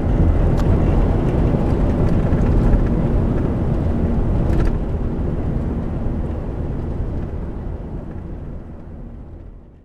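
Steady wind rumble on the microphone, heaviest in the low end, with a couple of faint clicks; it fades out over the last few seconds.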